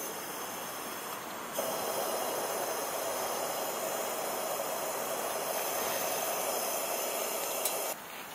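A 1965 Sears pressurized liquid-fuel lantern burning with a steady hiss from its lit mantle. The hiss grows louder about a second and a half in and stops abruptly near the end.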